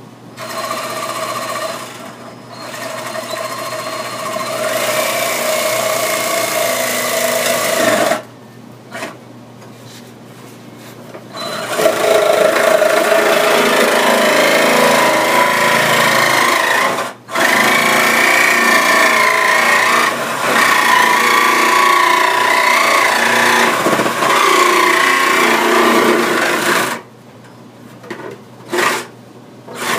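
Nested white plastic buckets being twisted and pulled apart, plastic rubbing and squeaking against plastic in long strokes with wavering pitch. The sound comes in two long stretches separated by a pause of a few seconds.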